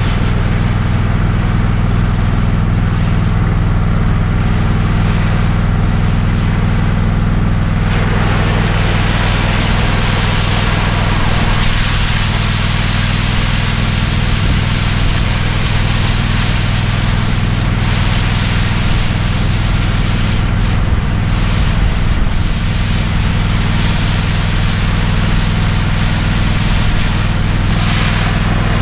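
Oxy-fuel cutting torch hissing as it cuts steel plate, over an engine running steadily. The hiss grows louder about a third of the way in and again just before halfway, as the cut gets going.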